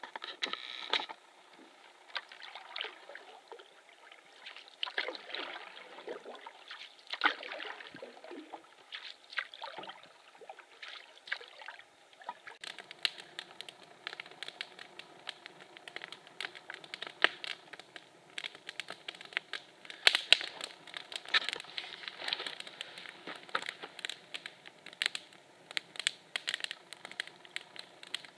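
A canoe paddle sweeping through calm lake water in irregular strokes. About twelve seconds in this gives way to a wood campfire crackling, with many sharp pops.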